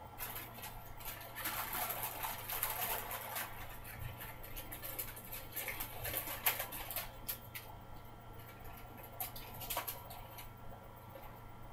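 Paper packaging of a sterile surgical glove wrapper crinkling and rustling as it is torn open and unfolded by hand, in irregular crackly bursts that thin out near the end, over a faint steady electrical hum.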